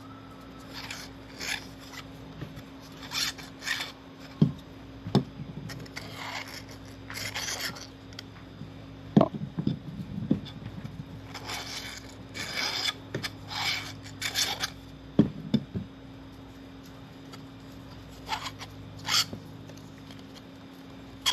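3D-printed plastic Vortex fidget toy being worked by hand: printed plastic parts sliding and scraping against each other in short, irregular rasping strokes, with a few light knocks.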